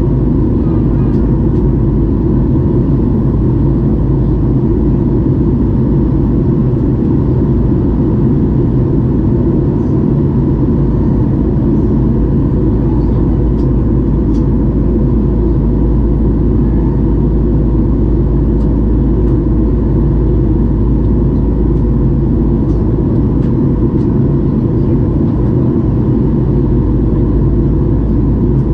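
Steady cabin noise inside a Boeing 737-800 in flight, heard from a window seat beside the wing and its CFM56-7B engine: a loud, unbroken low rumble of engine and airflow, with a faint steady hum on top.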